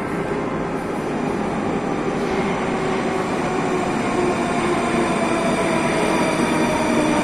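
Moscow Metro train heard from inside the car: steady running rumble and wheel noise, with a whine that slowly falls in pitch.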